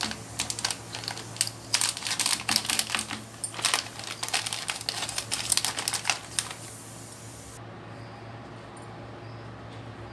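Rapid crackling and clicking of a packet of ready-made spring roll pastry sheets being opened and the sheets handled, stopping about six and a half seconds in and leaving only a steady low hum.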